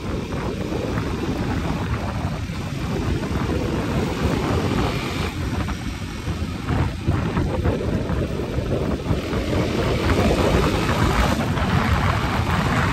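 Wind rushing and buffeting over the microphone of a motorcycle moving at road speed, with the rumble of the ride underneath; it grows a little louder in the second half.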